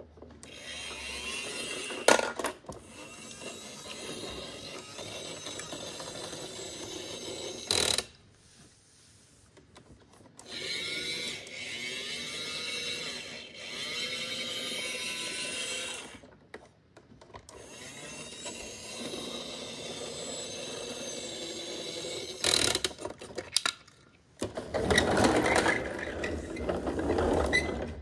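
Battery-powered toy garbage truck's small geared motor whirring in stretches as its side lifting arm lowers and raises, with sharp clicks at about two and eight seconds in and short pauses between runs.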